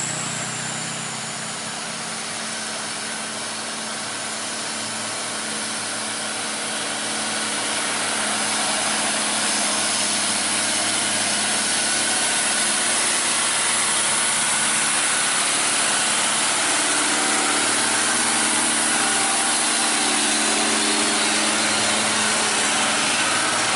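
Mitsubishi Fuso 6x2 tanker truck's diesel engine running as the truck approaches and passes close by, growing louder about seven seconds in and staying loud.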